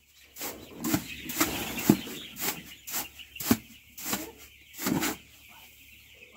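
Dry chick feed grain rustling as it is scooped and tossed by hand on a heap, in about a dozen quick strokes that die down about five seconds in.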